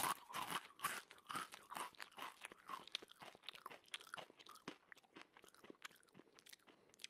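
Crunchy food being bitten and chewed: a quick irregular series of crisp crunches that grow fainter and sparser.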